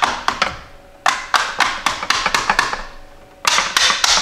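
Wiring harness sheathing and its plastic clips being pushed down onto the cylinder-head bolts of a Jeep 4.0L straight-six: three quick runs of sharp clicks and taps.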